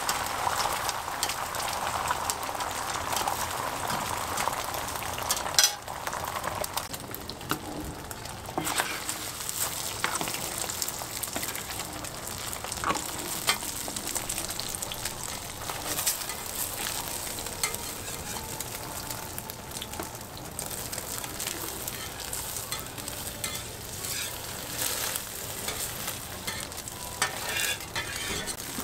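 Beaten egg sizzling on a hot flat-top griddle, with occasional scrapes and clicks of a metal spatula. The sizzle is densest for the first few seconds. About six seconds in a sharp clack is the loudest sound, and after it the sizzle is quieter.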